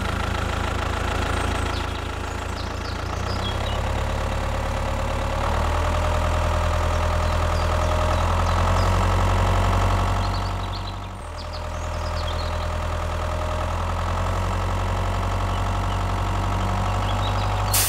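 Tractor engine running steadily at a low chugging idle; about two-thirds of the way through it drops away briefly and then picks up again.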